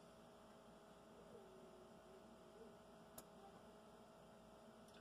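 Near silence with a faint steady electrical hum and one small click about three seconds in.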